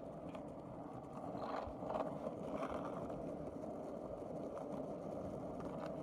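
Skateboard rolling: a steady rumble of the wheels, with a few sharper clacks about one and a half to two seconds in.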